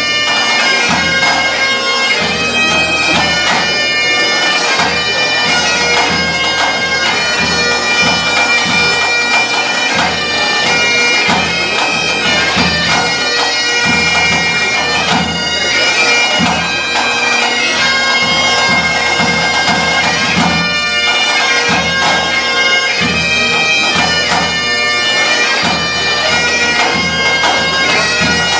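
Three Great Highland bagpipes playing a tune in unison over their steady drones, with a pipe band snare and tenor drum keeping the beat.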